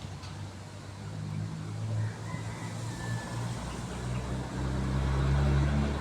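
A motor vehicle's engine hum passing by, growing louder toward a peak about five and a half seconds in, over a steady background hiss.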